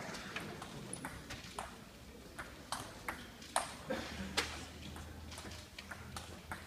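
A table tennis ball in a rally, clicking sharply off the bats and the table, with a crisp tick roughly every half second.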